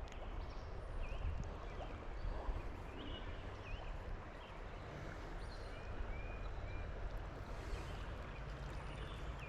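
Creek water running steadily, with short bird chirps now and then.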